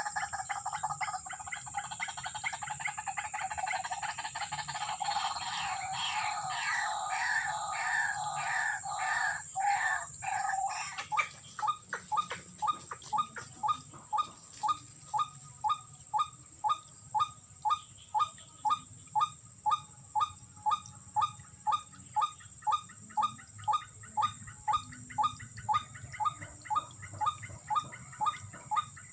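White-breasted waterhen (ruak-ruak) calling: a jumbled run of croaking calls for the first ten seconds or so, then a steady, monotonous "ruak-ruak" call repeated about twice a second. A steady high insect whine runs underneath.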